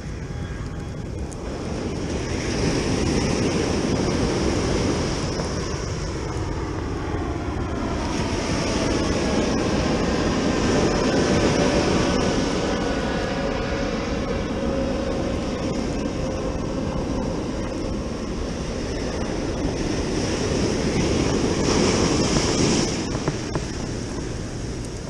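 Ocean surf breaking and washing up a sandy beach in swells. Through the middle a jet aircraft passes overhead, its rumble rising and fading.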